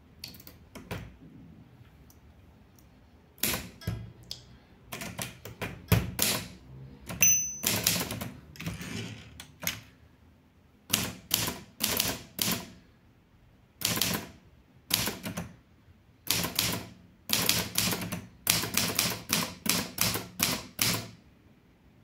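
Keys of a Litton Royal 203 manual portable typewriter being typed on: sharp clacks in quick runs of several strokes, broken by pauses of about a second.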